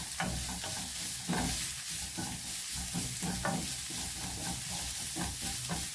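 Grated carrots, onion and garlic sizzling in oil in a frying pan, with a wooden spoon stirring and scraping across the pan in short repeated strokes.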